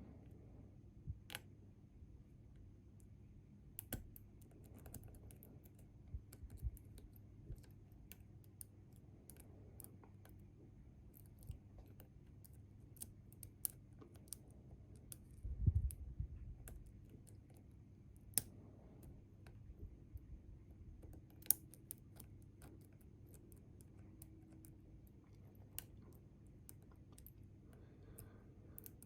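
Scattered faint clicks and ticks of lock-picking tools working the pins of a Bi-Lock cam lock, with one louder low thump about halfway through.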